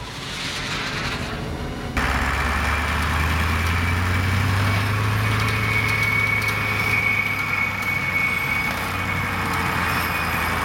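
Turbine blower unit on a truck running steadily, a deep rumble with a thin high whine held on top. It comes in abruptly about two seconds in and cuts off near the end.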